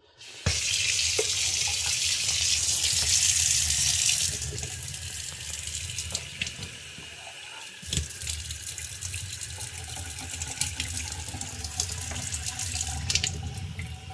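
Tap water running into a robot vacuum's mop water tank to fill it. The flow is loud for about the first four seconds, then runs softer, with a few light knocks.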